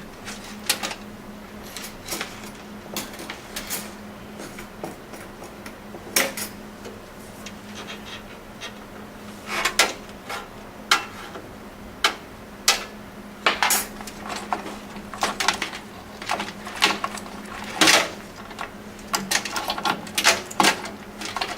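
Irregular clicks, taps and clatter of power-supply cables and plastic connectors being handled inside a metal PC case, over a steady low hum.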